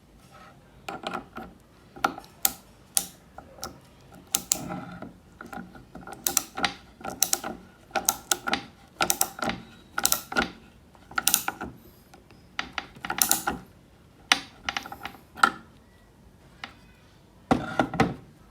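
Restored self-adjusting wrench being worked by hand: a long irregular run of sharp metallic clicks and clacks, many ringing briefly on the same pitch, ending in a quick cluster of clacks.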